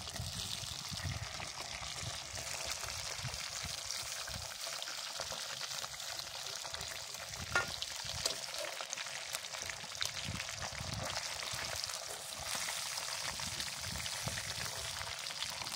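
Food sizzling steadily in hot oil in a cooking pan, with occasional stirring scrapes and a sharp click about seven and a half seconds in.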